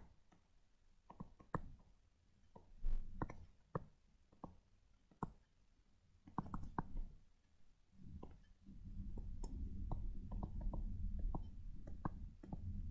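Faint, scattered clicks and taps of handwriting being done on a digital writing surface, with a low rumble that comes in about two-thirds of the way through.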